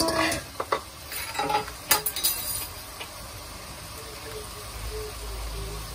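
Metal spoon stirring a pot of rice, vegetables and coconut milk, clinking and scraping against the pot. A few sharp clinks fall in the first two seconds or so, then the stirring goes quieter.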